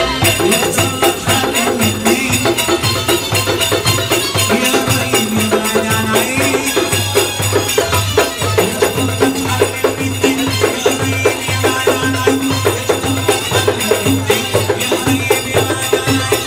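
Live Egyptian folk music: hand-played goblet drums (Egyptian tabla) beating a fast, steady rhythm with jingling percussion, over a held melody line that steps between notes.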